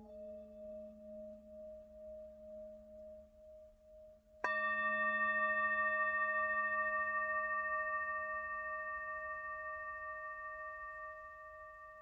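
Singing bowl struck once about four seconds in, ringing out in several clear tones that fade slowly; before the strike a low, steady hum wavers gently in level.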